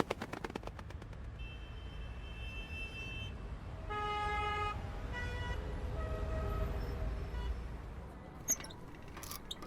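Steady traffic rumble with car horns honking several times, each toot held for about a second.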